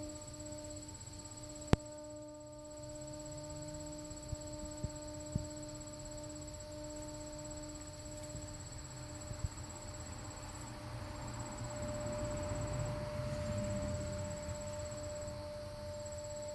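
A steady hum with several evenly spaced overtones and a low rumble that swells about twelve seconds in, over a high insect-like trill that comes in stretches. One sharp click comes near the start.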